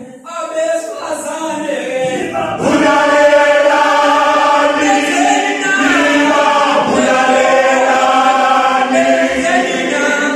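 All-male isicathamiya (mbube) choir singing a cappella in close harmony. The voices are thinner at first, then the full group comes in louder about two and a half seconds in.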